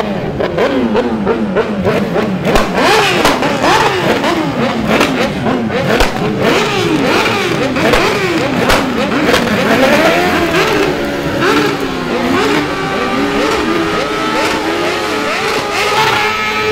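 Several sport motorcycles revving hard during burnouts and spinning donuts, their engine pitch sweeping rapidly up and down over and over. From about ten seconds in, the revs settle into a steadier, slowly climbing note.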